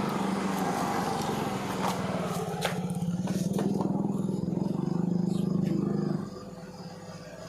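A small engine running steadily close by, then cutting off abruptly about six seconds in, with a few light clicks over it.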